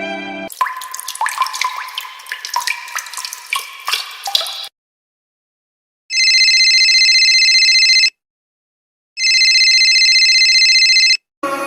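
About four seconds of water drops plinking and dripping, then, after a pause, a telephone ringing twice, each ring about two seconds long with a second's gap between them.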